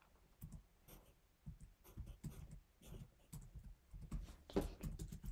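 Pencil writing on paper: short scratchy strokes in a quick, uneven rhythm, a little louder in the second half.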